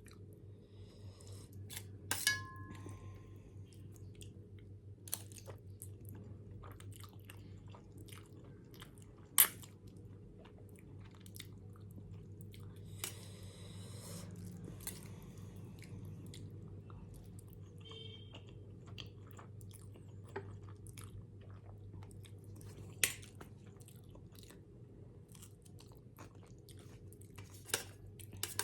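Close-up chewing of Maggi instant noodles, with many small wet mouth clicks and a few sharper ticks, over a low steady hum.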